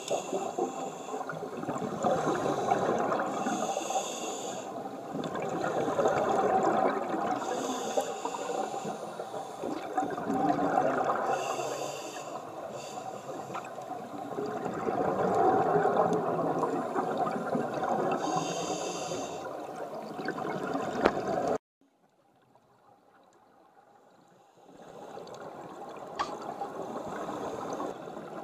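Scuba diver breathing through a regulator underwater: a hiss on each inhale and a rush of exhaust bubbles on each exhale, repeating about every four seconds. The sound cuts off suddenly near the end, and a fainter bubbling returns shortly before it ends.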